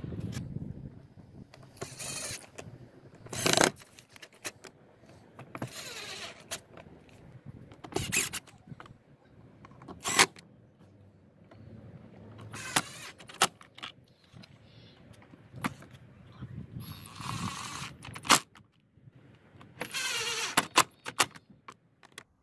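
Cordless impact driver running in several short bursts, driving in the screws that hold down a plastic air filter housing lid, with clicks and knocks of the plastic lid and tool between the bursts.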